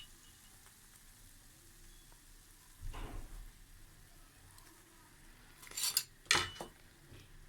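Bread slices frying in hot oil in a frying pan, a faint steady sizzle. A utensil scrapes against the pan about three seconds in and twice more, louder, about six seconds in.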